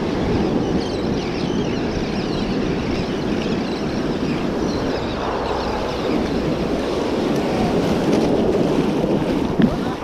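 Ocean surf breaking and washing up the sand, with wind buffeting the microphone, and a brief knock near the end.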